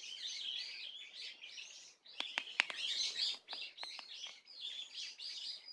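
Small birds twittering continuously in a busy, overlapping chatter, which the uploader takes, with a question, for barn swallows. A handful of sharp clicks come through in the middle.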